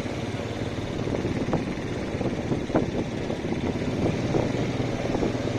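Beach buggy engine running steadily as it drives along a bumpy dirt track, with occasional knocks.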